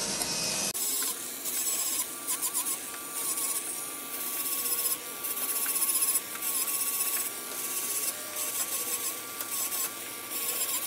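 Electric callus remover, a handheld rotary foot file, starting just under a second in: its motor gives a steady whine that wavers in pitch, while the abrasive head grinds hard skin off a heel with a rasping that comes and goes as it is pressed on and eased off.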